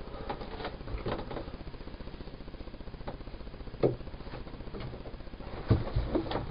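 Foam floor mats being handled and cut with a knife, with scattered knocks and clicks, the loudest about four seconds in and again near the end. Under it the boat's engine idles with a steady, fast putter while it warms up.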